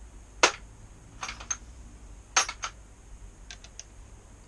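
Sharp metal clinks and clicks of hand tools being handled: a 10 mm socket and a small ratchet. There are a few separate knocks, the loudest about half a second in and again about two and a half seconds in.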